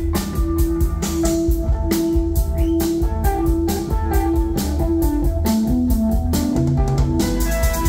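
Live rock band playing an instrumental passage: a Stratocaster-style electric guitar plays held lead notes over drums and bass guitar.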